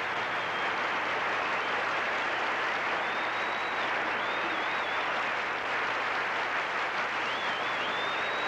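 Studio audience applauding steadily, with a few high, wavering whistles over the clapping.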